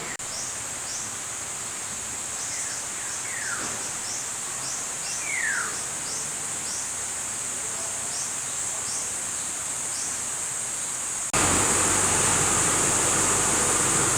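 Steady high-pitched insect drone with birds calling: a few clear descending whistles and short falling chirps about twice a second. Near the end this cuts off abruptly into a louder, even rushing noise.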